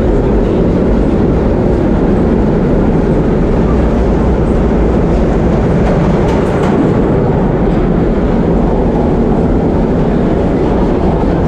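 1930s vintage subway train running on the track, heard from inside the car: a steady, loud rumble of wheels and running gear, with a few light clicks about halfway through.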